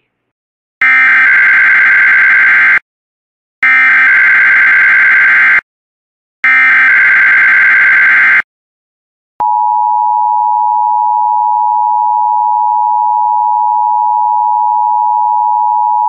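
Emergency Alert System header: three identical bursts of digital data, each about two seconds long with short gaps, followed about nine seconds in by the steady weather-radio warning alarm tone. It is the county-code and alarm-tone sequence of a NOAA Weather Radio weekly test, the signal that switches weather radio receivers on automatically.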